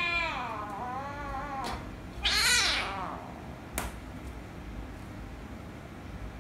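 Kitten meowing in two drawn-out, wavering calls, then a loud, harsh hissing cry about two seconds in: an angry kitten reacting to another kitten pawing at it. A single sharp click follows near four seconds.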